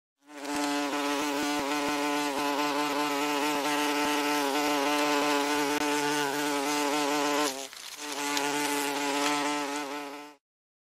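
Common wasp (Vespula vulgaris) buzzing, a steady wingbeat buzz that drops out for a moment about three-quarters of the way through, then resumes and stops shortly before the end.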